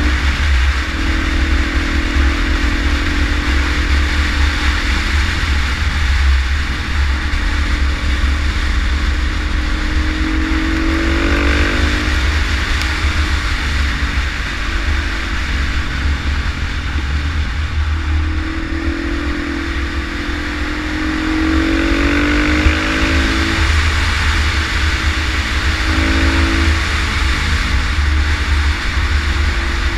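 Husaberg 350 single-cylinder four-stroke supermoto running at road speed, with heavy wind rumble on the microphone. The engine pitch rises as it accelerates, about ten seconds in and again around twenty seconds.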